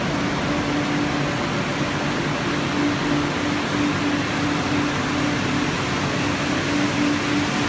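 Conveyorised photo-etching machine running: a steady rushing noise from its pumps and etch modules with a constant hum underneath.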